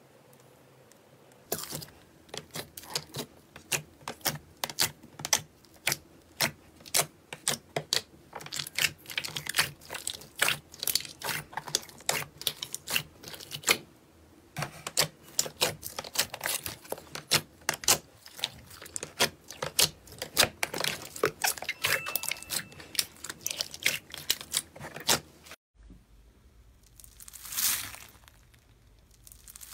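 Slime being squeezed and pressed by hand, giving a fast, irregular string of sharp clicks and pops. After a short break near the end come two softer swells of noise.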